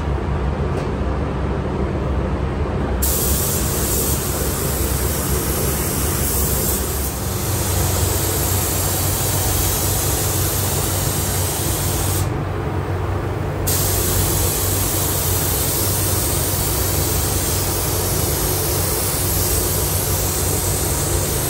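Compressed-air spray gun hissing as it sprays paint, starting sharply about three seconds in, breaking off for about a second past the midpoint when the trigger is released, then running on. Under it is a steady low mechanical hum.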